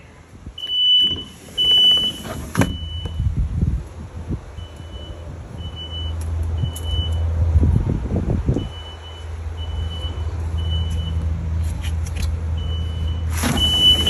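Kidde smoke alarm sounding in its three-beep pattern, a high beep about once a second in groups of three with a short pause between groups, set off by canned test smoke in its sensing chamber. Heard from outside through a doorway, the beeps grow fainter in the middle and stronger again near the end, over a low rumble.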